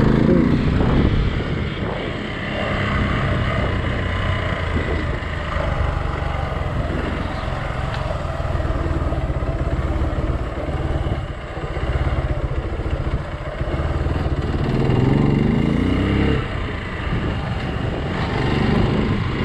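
Hero XPulse 200's single-cylinder engine running while the motorcycle is ridden off-road, its revs rising and falling several times.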